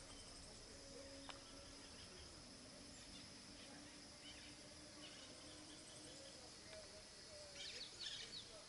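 Faint outdoor ambience: a steady, high-pitched insect drone, with a short run of bird chirps near the end.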